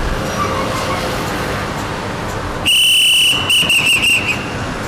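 A whistle blown hard: one long blast of under a second, then about four quick short toots.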